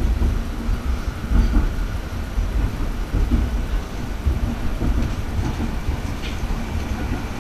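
Stadler Variobahn light-rail tram running along its track, heard from inside the car: a steady low rumble of wheels on rails.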